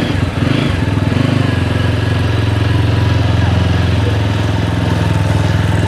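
Motorcycle engine running, its note settling and holding steady after about a second and a half.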